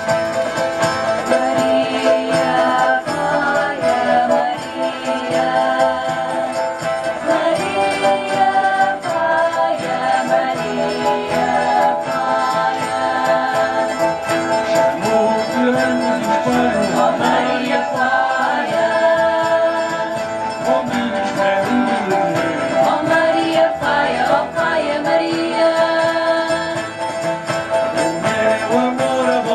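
Folk ensemble playing live: violin, guitars and keyboard, with the jingles of a tambourine.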